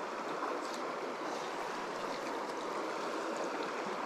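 Shallow river flowing over rocks: a steady, even rush of water.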